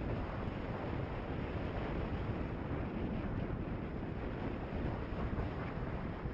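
Steady wind rush on the microphone of a motorcycle-mounted camera, over the low rumble of the motorcycle and its tyres riding on a gravel road.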